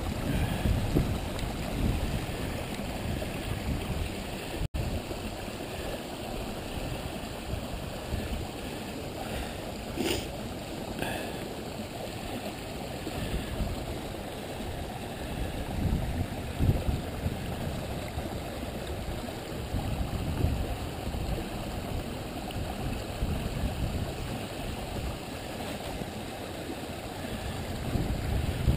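Steady rush of creek water running over rocks, with a low rumble underneath and a couple of faint clicks about ten seconds in.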